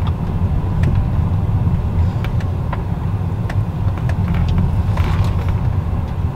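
Steady low rumble of a car heard from inside its cabin, with a few faint clicks.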